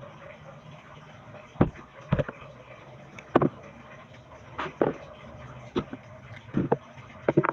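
Small knife paring the rind off a santol fruit: about eight short, sharp cutting strokes at irregular intervals over a faint steady hum.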